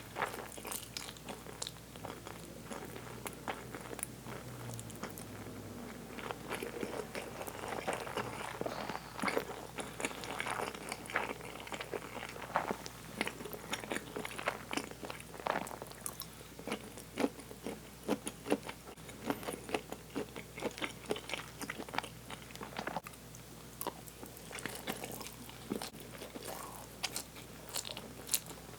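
Close-miked eating of a meal of Mi Goreng fried instant noodles: chewing and mouth sounds with many irregular sharp clicks and smacks, several a second.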